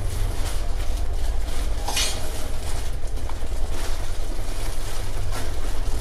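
Footsteps and scuffs on a gritty concrete tunnel floor over a steady low rumble, with one louder scrape about two seconds in.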